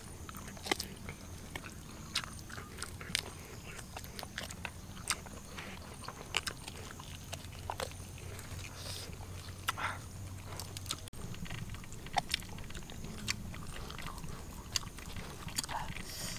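Close-up eating sounds of a person biting and chewing meat off a cooked chicken drumstick. It is a run of short, irregular wet smacks and clicks.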